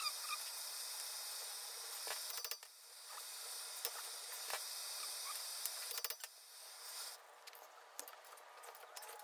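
Propane torch flame hissing steadily while it heats a seized wheel hub to free the CV axle, with scattered light clicks and taps of tools. The hiss drops away about seven seconds in.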